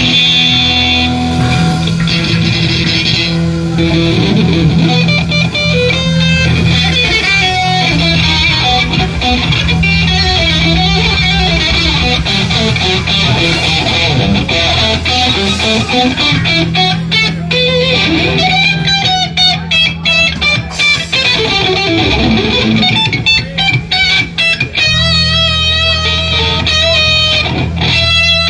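Instrumental blues passage: electric guitar playing quick lead runs over a steady low bass line.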